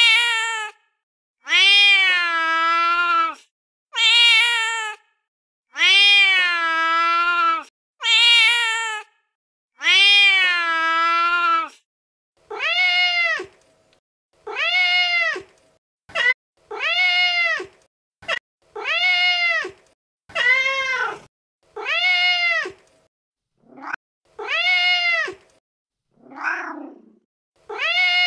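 Recorded domestic cat meows from a phone cat-sound app, played one after another with dead silence between them. The first six meows are long and drawn out, and the later ones are shorter and quicker. One lower, rougher call comes near the end.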